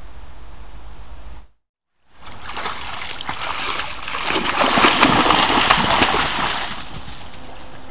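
Red deer stag wading through a shallow, duckweed-covered muddy pond: water splashing and sloshing around its legs, growing loudest about five seconds in, then fading.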